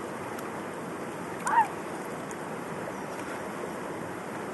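River water flowing steadily. A short high call cuts through it once, about a second and a half in.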